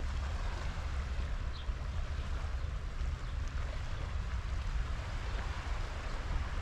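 Wind buffeting the microphone with a low rumble, over a steady outdoor hiss, and a faint short high chirp about one and a half seconds in.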